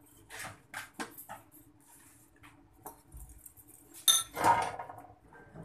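A spoon and ceramic bowls clinking and knocking together as dishes are handled: a few light taps in the first second or so, then a louder clatter with a short ring about four seconds in.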